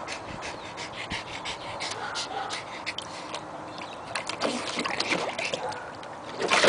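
Shallow water splashing and sloshing in a plastic kiddie pool as a Schipperke lying in it moves its legs and shifts about, in a run of small irregular splashes with a louder splash near the end.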